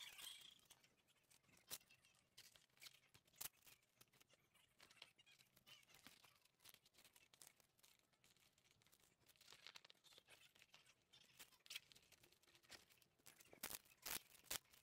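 Faint rustling and scattered clicks of hands handling and closing a hard-shell triangle frame bag with a battery inside, with a few sharper ticks.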